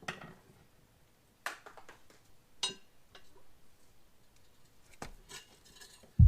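A few scattered sharp clicks and scrapes of a pry bar and tire working against a small go-kart wheel rim as the tire's top bead is levered on.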